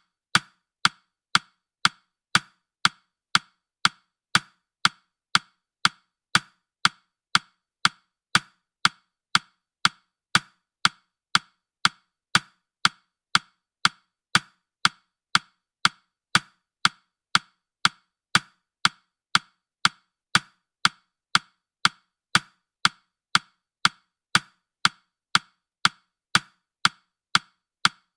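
Countdown timer's clock-tick sound effect: a steady, sharp ticking at about two ticks a second.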